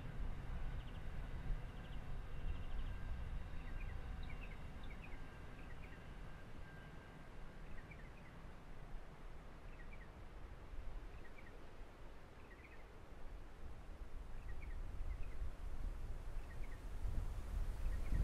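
Outdoor ambience: small birds chirping now and then over a low, uneven rumble that grows louder near the end.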